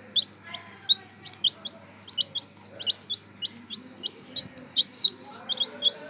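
Domestic chicken chicks peeping: a steady string of short, high, upward-sliding peeps, about four a second, from several chicks.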